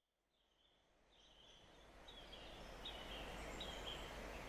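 Birds chirping in short repeated calls over a steady rushing hiss of outdoor ambience, fading in from silence about a second in and slowly growing louder.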